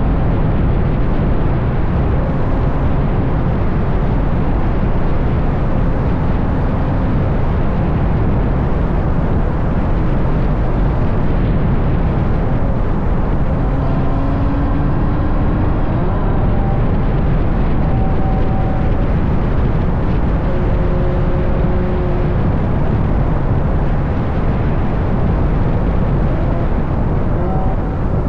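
Ferrari GTC4Lusso with a Capristo exhaust driving at speed, heard from a camera mounted outside the car: a heavy, steady rush of wind on the microphone over a low exhaust drone, with faint engine tones rising and falling now and then.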